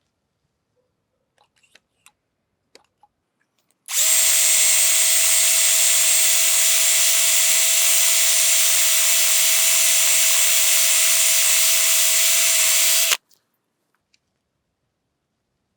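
Power drill running at one steady speed with a steady whine for about nine seconds, driving a small drill bit into a broken bolt to eat it away down to the threads of the bolt hole. It starts about four seconds in and stops abruptly, after a few faint clicks at the start.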